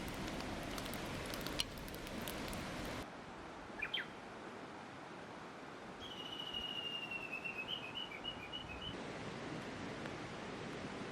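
Light crackling and ticking over a steady hiss for about three seconds, then a short double chirp, and about six seconds in a high trilling call: a held, slightly falling note that breaks into quick pulses, lasting about three seconds. The steady hiss comes back near the end.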